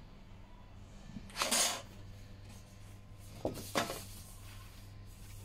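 Sheet of laminated printed labels handled by hand: a loud rustle about a second and a half in and two sharper crackles just before four seconds. A steady low electrical hum from the running roll laminator lies underneath.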